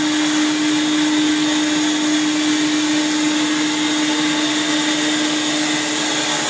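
Upholstery extractor's vacuum running steadily as its hand tool sucks the cleaning solution and urine treatment back out of a wet fabric cushion, a constant drone with one steady tone under a rushing hiss.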